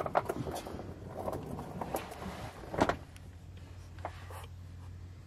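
Scuffing and rustling with a few sharp clicks, the loudest about three seconds in, over a steady low hum.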